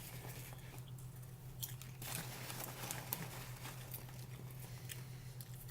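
Someone eating microwave popcorn: soft crunching of popped kernels and crinkling of the paper bag, in scattered small clicks.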